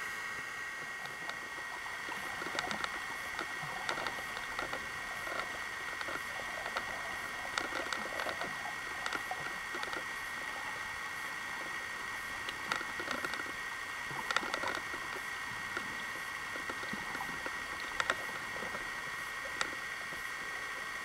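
Underwater sound picked up by a camera in its waterproof housing: a steady high hum with irregular sharp clicks and crackles scattered through it.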